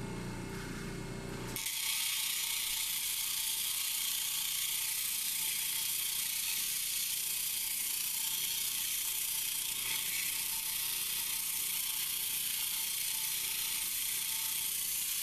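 Labradorite being ground on a spinning 100-grit diamond flat-lap wheel with water: a steady, even grinding hiss that starts abruptly about a second and a half in, after a quieter low machine hum.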